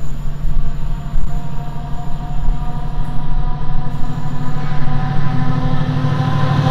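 Colas Class 70 diesel-electric locomotive's GE PowerHaul V16 engine running under power as it approaches, a steady low drone with a row of fainter tones above it, getting louder near the end.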